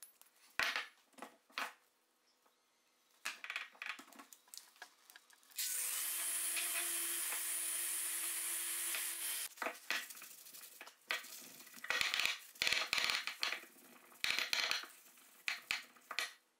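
Random orbital sander running steadily for about four seconds in the middle, with a whirring hiss and a few held tones, then cutting off. Before and after it come short bursts of rubbing and scraping, with a run of quick strokes near the end.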